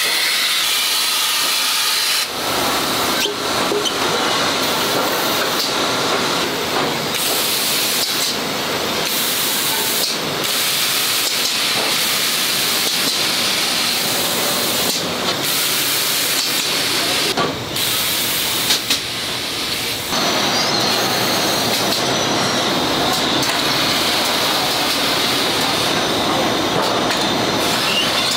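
Compressed-air spray gun hissing steadily as non-stick coating is sprayed onto aluminium frying pans; the hiss shifts in tone abruptly at a few points.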